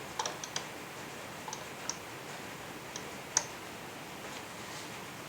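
A few light clicks and taps from router and template parts being handled while the router's cutting depth is set. The sharpest click comes about three and a half seconds in, over a steady low hiss.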